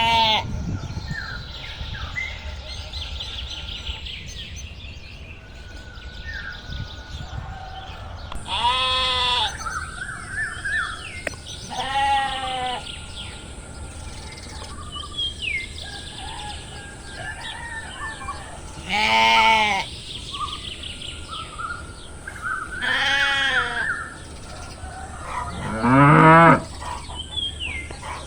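Sheep bleating, about five separate calls spread through, with short bird chirps between them.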